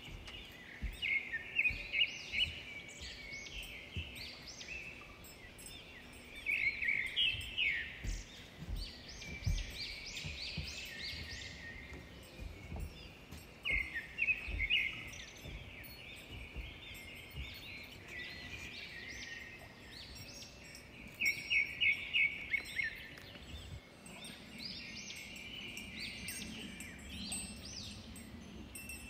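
Small birds chirping and calling, often in quick runs of several short notes, on and off throughout, with faint low thumps underneath.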